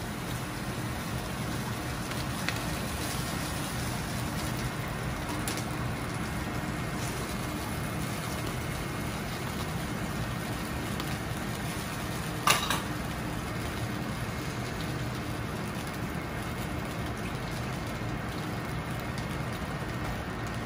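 Steady rushing noise of a commercial kitchen's gas wok range and ventilation, with a low hum underneath. A single sharp click about twelve seconds in.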